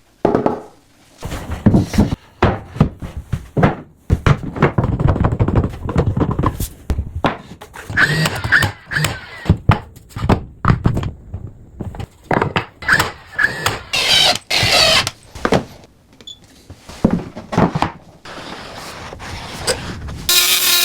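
Irregular wooden knocks and thunks of cabinet boxes being handled and set in place, with a brief whirring sound about fourteen seconds in.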